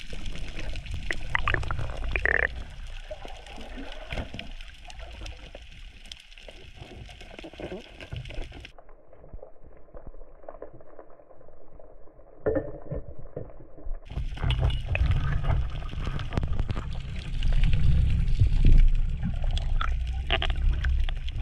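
Underwater audio of a diving camera: muffled water noise against the housing with a low rumble and scattered clicks and knocks. A short high tone sounds about two seconds in, and the sound goes duller and quieter for several seconds in the middle.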